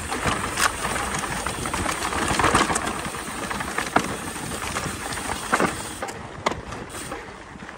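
Mountain bike riding fast down a dirt singletrack: steady tyre and wind noise on the microphone, with several sharp knocks and rattles from the bike over bumps. It eases off somewhat near the end.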